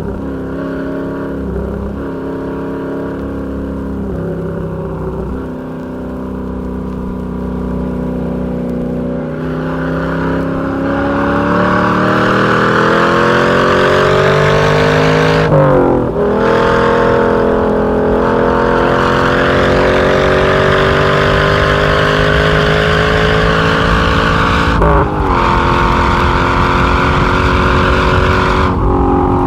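1961 Corvette's fuel-injected 283 small-block V8 pulling hard through the gears, heard from inside the car. The engine note climbs in a long rising pull, then falls sharply at an upshift about halfway through, rises again, and drops at two more shifts near the end.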